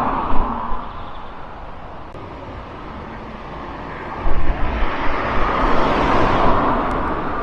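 Road traffic passing: one vehicle's tyre and engine noise fades away in the first second, and another approaches and passes about four to seven seconds in.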